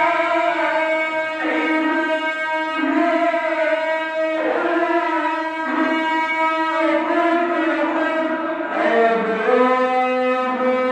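A man's voice reciting the Quran melodically, drawing out long held notes with slow ornamented turns of pitch and dropping to a lower note about nine seconds in.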